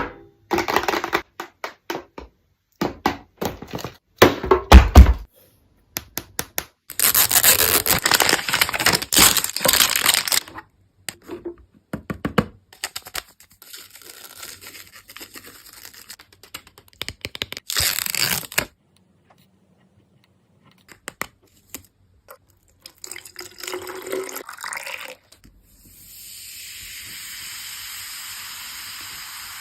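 Slime being squished, poked and stretched by hand: irregular runs of wet crackling and popping clicks, some loud, with pauses between. About four seconds before the end a steady hiss starts and keeps going.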